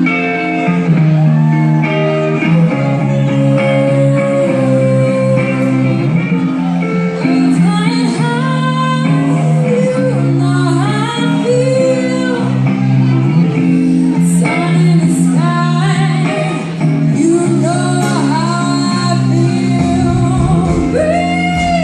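Live rock band music in a large hall, with electric guitar and singing, heard loud through an audience member's recording.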